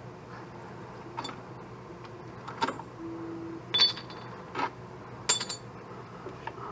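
Metal hand tools clinking and knocking together, such as sockets and wrenches being handled: several sharp metallic clinks, the two loudest about four and five seconds in ringing briefly, over a steady low hum.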